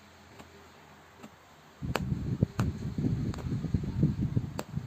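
Punch needle stabbing yarn through fabric stretched in a wooden embroidery hoop: faint taps about once a second, then from about two seconds in a louder, denser rustling and knocking with a few sharp clicks.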